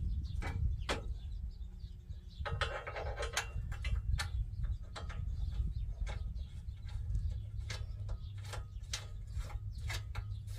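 Irregular light metal clicks and clinks as a steering box brace and its bolts are fitted loosely by hand against a Jeep Cherokee XJ's frame, with a short scraping patch about two and a half seconds in, over a low steady rumble.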